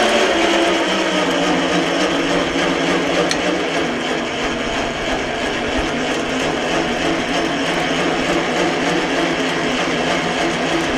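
Electric winch motor running steadily with a whine while hauling a heavy oak log, working hard under the load.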